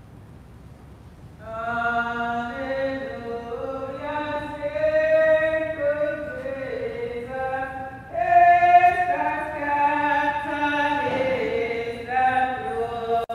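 Unaccompanied voice singing a slow hymn in held notes, starting about a second and a half in, with short breath breaks between phrases.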